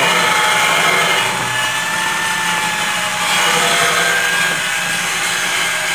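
Handheld power tool spinning a small sanding disc against steel, grinding surface rust off a fan's metal frame and struts. A steady motor whine over the scratch of the disc, its pitch drifting slightly as the disc bears on the metal.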